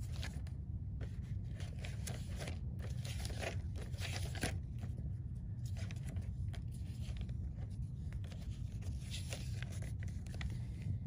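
Paper pages of a LEGO instruction booklet being flipped and riffled by hand: a string of irregular papery flicks and rustles, over a low steady hum.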